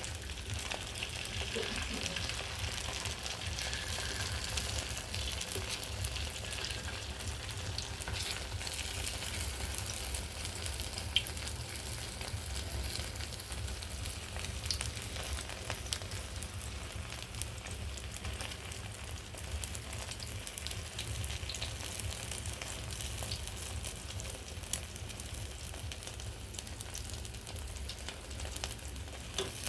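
Egg frying in hot oil in a pan: a steady sizzle with scattered small crackles and pops.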